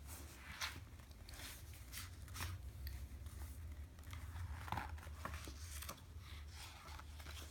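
Paper pages of a hardcover children's picture book rustling as they are handled and turned: a scatter of short, soft rustles and taps.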